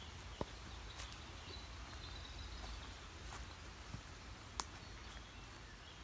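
Footsteps through woodland undergrowth: a few irregular sharp snaps and crackles of twigs and leaf litter underfoot over a low steady rumble. Faint high bird chirps come in the middle.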